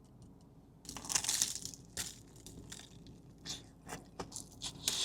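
Crunchy bites and chewing of a cornflake-crusted Korean corn dog: a crackly crunch about a second in, then scattered smaller crunches.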